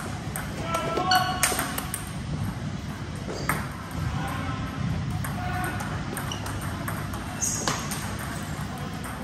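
Table tennis ball in a rally: sharp, irregular clicks of the celluloid ball off the rubber paddles and the table top, over a steady low hum.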